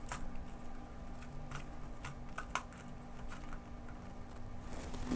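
Light, irregular taps and ticks on a paper sheet strewn with iron filings, as the filings are jostled into field-line patterns over two bar magnets. A faint steady hum lies underneath.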